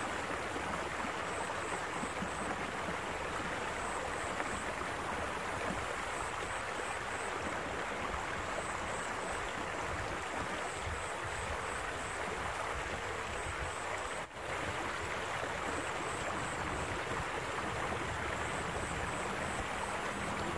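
Water rushing steadily along a stone-lined irrigation canal and over a small drop. Faint high chirps come in short runs of four or five, every few seconds.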